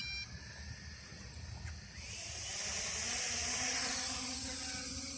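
Small FPV racing quadcopter's brushless motors and propellers spinning up about two seconds in: a rising whir under a steady hiss of propeller wash.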